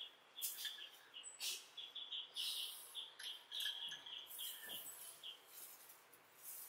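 Close-miked eating sounds: gulps of iced cola, then soft chewing of a sugar-coated donut, coming in short crackly bursts every second or so. A faint high chirping repeats underneath throughout.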